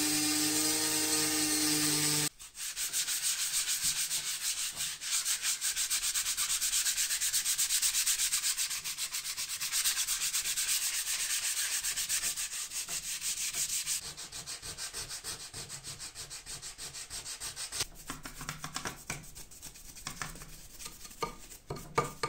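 A rotary tool with a sanding drum runs steadily for about two seconds and stops. Then comes hand sanding of the plywood bellows board: fast, even back-and-forth rubbing strokes that grow lighter partway through. Near the end, slower scrubbing strokes of a small brush work over the board's metal plate.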